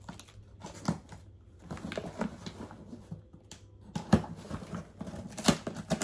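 Cardboard box being cut open with a knife and handled: irregular taps, knocks and scrapes with some rustling, the sharpest knocks about four and five and a half seconds in.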